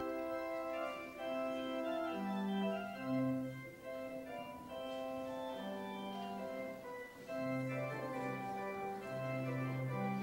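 Church organ playing the closing postlude: sustained chords that change about every second, over a bass line of held low notes.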